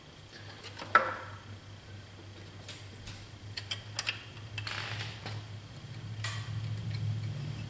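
Scattered clicks and clinks of metal hand tools, a socket on a long extension among them, while a new thermostat is fitted into the engine. A low steady hum underneath grows louder in the second half.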